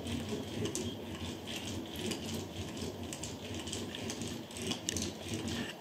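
A hand tool worked back and forth along carpet by a wall, making a run of irregular soft clicks, crackles and rustles against the pile.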